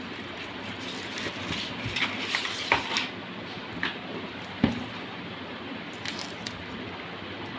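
Phone packaging being handled on a table: paper and card rustling, with light clicks and taps of the plastic case and cardboard box. A single knock a little past halfway is the loudest sound, with a few small clicks after it, over a steady low background hum.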